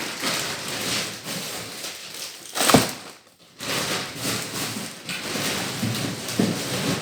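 Groceries and their packaging being handled and rustled, with one sharp knock of an item set down about three seconds in.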